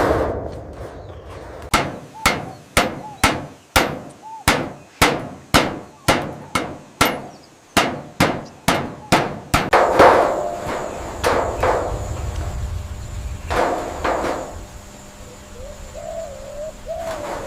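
A hammer striking repeatedly at about two blows a second, then a louder hit and a few scattered blows. A short wavering squeal comes near the end.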